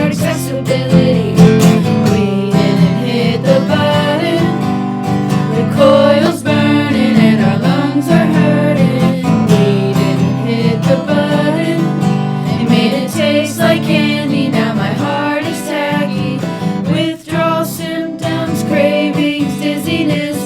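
A song sung to strummed acoustic guitar.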